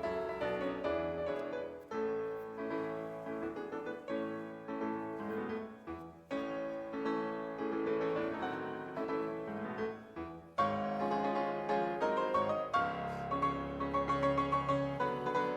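Background solo piano music, which grows louder about two-thirds of the way through.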